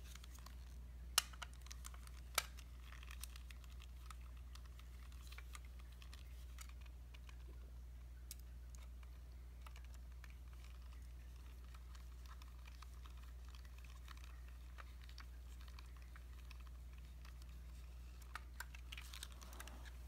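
Small clicks and taps of a screwdriver working screws on a metal hard-drive mounting plate. There are two sharper clicks near the start, scattered light ticks after them and a cluster of clicks near the end, over a steady low hum.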